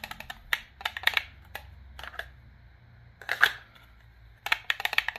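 Reiff F5 belt knife rattling in its Kydex sheath as it is shaken, in irregular clusters of sharp plastic clicks: the sheath's light retention lets the blade knock about inside.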